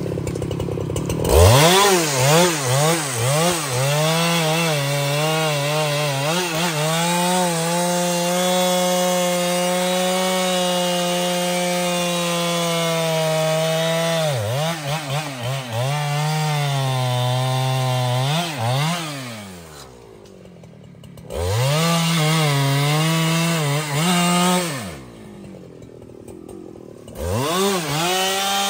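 Husqvarna 395 XP two-stroke chainsaw revving up from idle and cutting through a large rain tree (trembesi) log. Its engine pitch dips and recovers under load, then holds steady for a long stretch of the cut. About two-thirds of the way in it drops back to idle, revs briefly, idles again, and revs up once more near the end.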